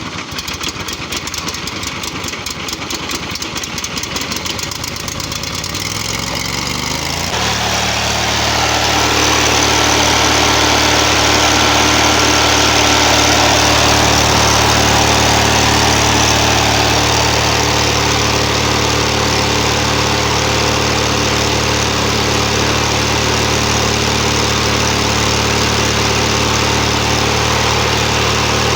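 25 HP Briggs & Stratton V-twin lawnmower engine just started after a jump-start. It runs slowly with a quick even pulse at first, speeds up about seven seconds in, then runs steadily.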